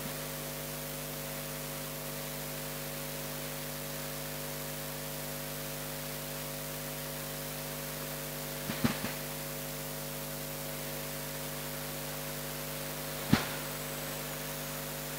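Steady electrical mains hum with hiss from a public-address sound system left open between announcements. There is a brief cluster of small clicks about nine seconds in and one sharper click near the end.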